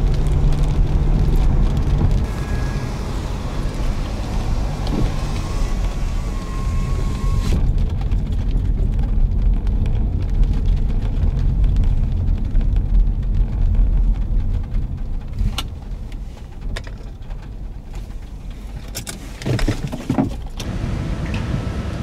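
Car driving, a steady low rumble of engine and road, with the higher hiss dropping away about seven seconds in and a few sharp clicks near the end.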